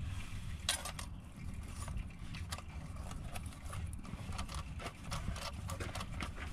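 Scattered, irregular clicks and light knocks of hand tools and parts being handled, over a steady low hum.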